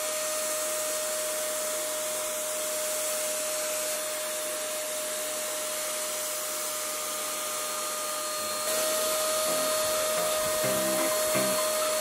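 INGCO electric paint spray gun running: a steady motor whine with the hiss of paint spraying from the nozzle. About eight and a half seconds in it gets louder, and background music comes in near the end.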